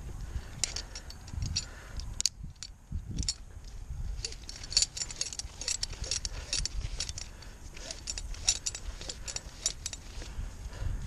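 Rapid, irregular light metallic clicks and clinks, typical of a tree climber's hardware being handled, over a low rumble.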